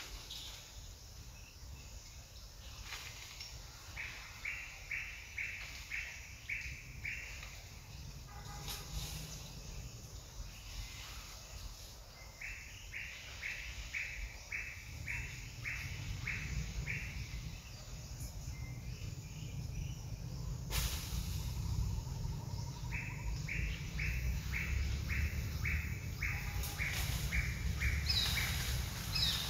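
A bird calling in runs of eight or more short, clipped notes, about two a second, three times over, with a few higher chirps near the end. A low rumble grows under it in the second half, and there is one sharp knock a little past the middle.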